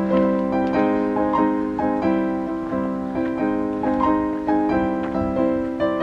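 Background piano music: a calm melody over held chords, with a new note or chord struck about every two-thirds of a second.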